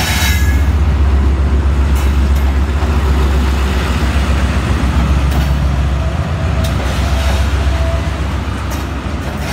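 Pakistan Railways ZCU-30 diesel-electric locomotive running past at low speed as it enters the station, its engine a loud, steady low rumble, with a few sharp clicks as it rolls, and the passenger coaches starting to follow behind it near the end.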